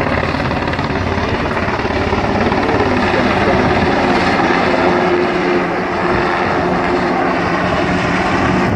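Search-and-rescue helicopter in flight overhead, its rotors and engines making a loud, steady sound throughout.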